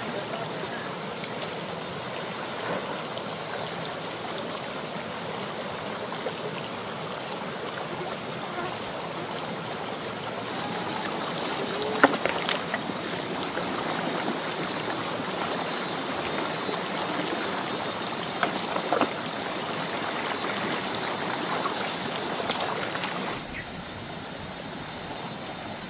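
Water flowing steadily, like a running stream or channel. A few sharp knocks come through about halfway and again a little later.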